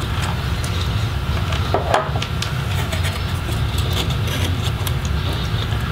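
Steady low background hum, with faint clicks and scrapes of a small Phillips screwdriver working the heatsink screws on a laptop's motherboard, the clearest about two seconds in.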